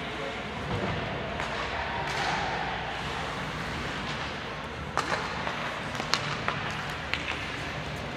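Ice hockey play on a rink: steady rink noise with a quick run of sharp knocks from sticks, puck and boards, about five to seven and a half seconds in.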